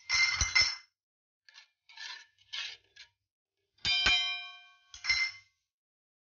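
Metal spoon stirring in a metal cooking pot, scraping against it. About four seconds in, it strikes the pot with a ringing clang.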